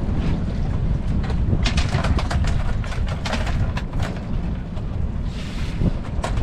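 Lobster pots and gear knocking and clattering as they are handled on a small fishing boat, over a steady low rumble of wind on the microphone, with a short hiss near the end.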